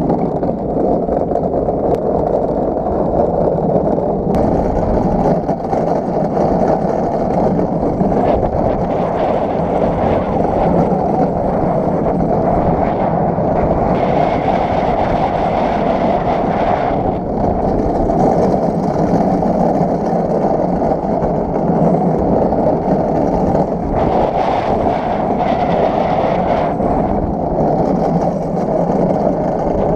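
Wheels of a summer luge sled rolling fast on a concrete track: a loud, steady rumble, with a brighter hiss that comes and goes on the corners.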